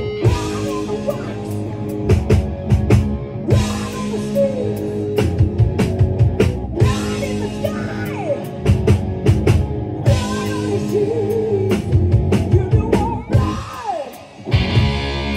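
Live rock band playing: distorted electric guitars, bass and a drum kit with a steady beat, and a singer's vocal lines over them. A little before the end the band drops out for a moment, then comes back on a held, ringing chord.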